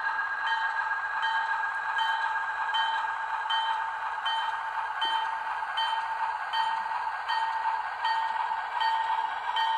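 Model locomotive sound: a Bachmann Alco switcher's bell ringing steadily, about four strokes every three seconds, over a continuous diesel engine sound from the loco's small speaker as it moves.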